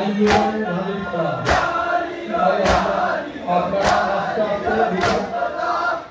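A crowd of men chanting a Muharram lament in unison while beating their chests in time, with sharp slaps about every 1.2 seconds, five strokes in all.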